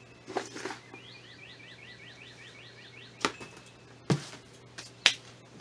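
Several sharp knocks and clicks from handling potting things, a quick cluster just after the start and single louder knocks in the second half. Between them a bird sings a quick trill of about ten rising chirps.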